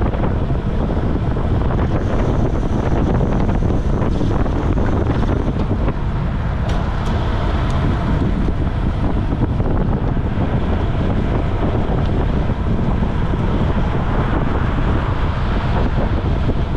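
Steady wind buffeting the microphone of a bike-mounted camera on a road bike moving at about 25 mph.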